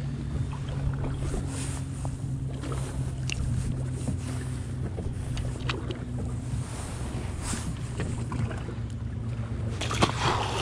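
Wind buffeting the microphone over a steady low hum, with a few small clicks from handling. About ten seconds in, a splash as a small striped bass is tossed back into the sea.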